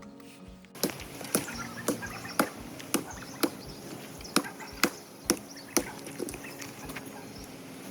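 Wood being chopped with a blade: about eleven sharp blows, roughly two a second, over a steady outdoor hiss.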